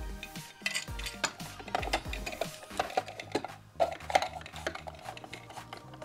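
Hard plastic toy pieces clicking and clattering: a clear plastic crisper drawer holding toy vegetables is handled and slid into a plastic toy fridge. Background music plays underneath.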